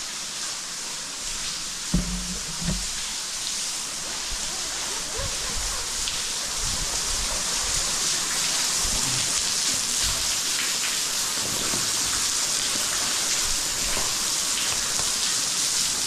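Waterfall pouring down a vertical cave pit: a steady hiss of falling water and spray that grows gradually louder, with a couple of dull thumps about two seconds in.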